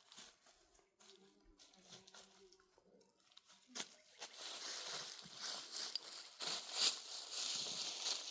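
Rustling and crunching with many small crackles, faint at first and growing loud from about four seconds in.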